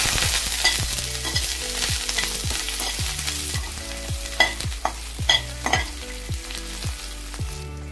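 Chopped garlic and ginger sizzling in hot oil with cumin seeds in a steel kadhai on a low flame, stirred with a steel slotted spoon that clicks and scrapes against the pan. The sizzle eases a little after about three and a half seconds, and a few sharper clicks of the spoon come in the second half.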